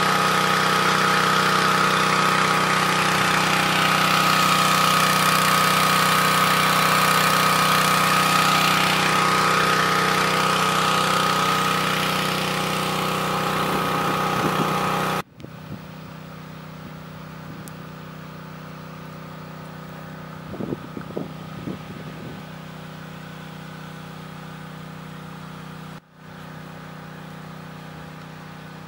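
A fire truck's engine running steadily, with a high whine over the drone. It is loud for about the first half, then drops suddenly to a much quieter steady drone.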